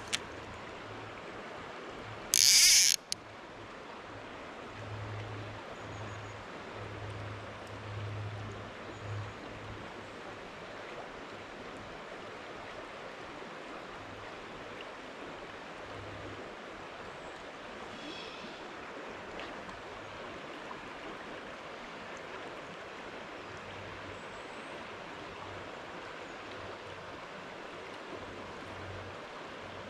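Shallow river running over a stony bed, a steady rush of water. About two and a half seconds in, a brief loud hiss.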